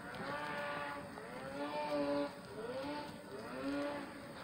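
A boy's wordless voice: several drawn-out hummed tones, a few sliding upward in pitch, the loudest about two seconds in.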